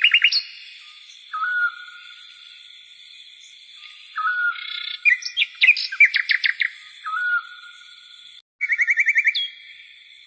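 Songbirds singing: a short whistled phrase repeats about every three seconds between bursts of fast chirping trills. The sound drops out for a moment near the end, before a final trill.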